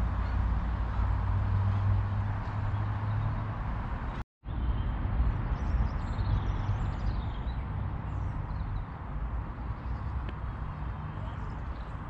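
Outdoor walking ambience: a steady low rumble, broken by a brief total dropout about four seconds in, followed by a few faint, high, wavering bird calls.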